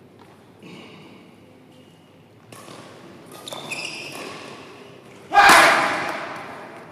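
Badminton rally: racket strikes on the shuttlecock and players' shoes on the court. About five seconds in comes a sudden loud shout that echoes through the hall and fades over a second or so.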